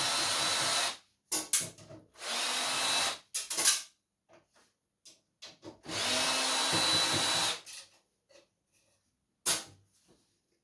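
Power drill driving screws out of a computer power supply case. It runs in three bursts of a second or so each, with a steady motor whine, and short clicks and rattles of the metal parts in between.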